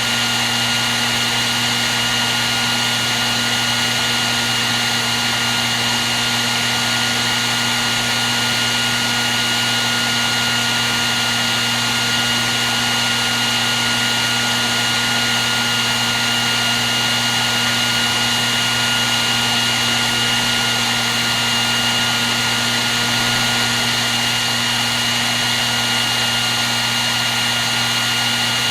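Hair dryer running continuously at a steady speed, giving a constant rush of air with a steady motor whine.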